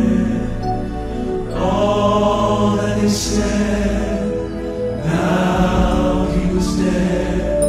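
Southern gospel male quartet singing slow, held harmony chords live, the chord changing about a second and a half in and again about five seconds in.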